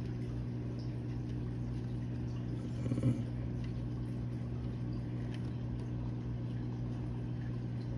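Steady low electrical hum of running aquarium equipment, with a brief knock about three seconds in.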